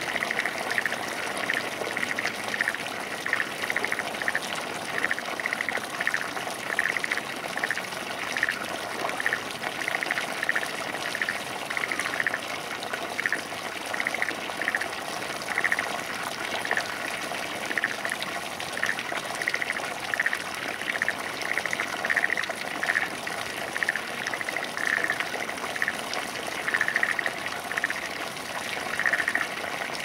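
Water running steadily through a small irrigation ditch between flooded rice paddies, with frogs calling in short notes repeated about every second, under the sound of the water.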